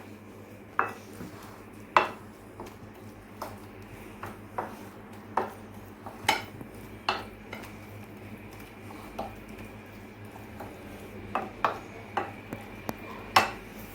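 A spoon stirring a spiced onion, parsley, saffron and garlic marinade in a bowl, clinking irregularly against the bowl with a few sharper knocks.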